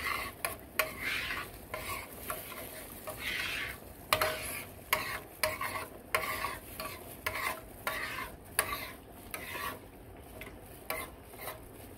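A utensil stirring cream sauce in a square nonstick skillet, in repeated scraping strokes against the pan bottom with small taps. A light sizzle from the hot pan runs underneath.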